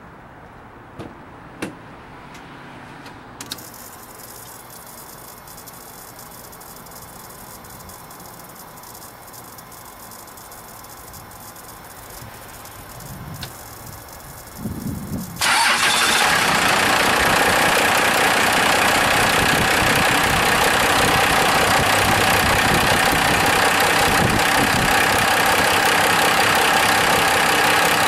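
A 5.9 L 12-valve 6BT Cummins inline-six turbo diesel in a 1995 Dodge Ram 2500 being cranked and started. A few clicks come first, then brief cranking, and the engine catches about halfway through and settles into a loud, steady idle.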